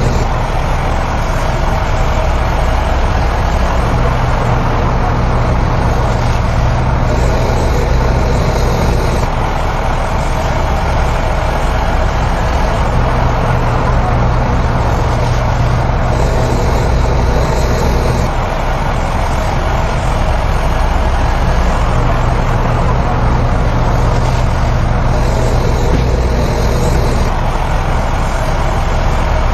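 Diesel engine of heavy earthmoving equipment running steadily under load. Its low drone strengthens and eases in a repeating cycle about every nine seconds, as the machine works and pauses.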